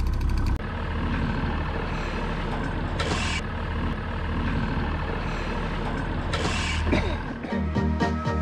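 Trolling boat's motor running steadily, with two short hisses about three and six seconds in and a rapid ticking in the first half-second. Music starts near the end.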